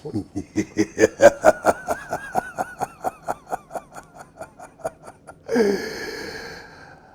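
A man cackling, about four laughs a second and fading over five seconds, then one drawn-out breathy cry lasting about a second and a half.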